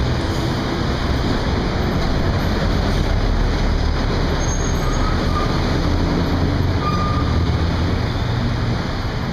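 Steady street traffic noise from passing vehicles, a continuous low hum of engines and tyres.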